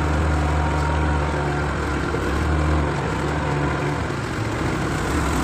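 Yamaha 25 hp outboard motor running steadily as the boat moves, a low engine drone over a rushing hiss; the drone eases slightly about three seconds in.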